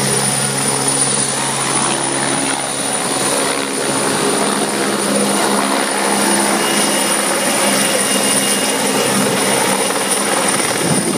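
Light helicopter flying low past over the water, its rotor and turbine engine running loud and steady.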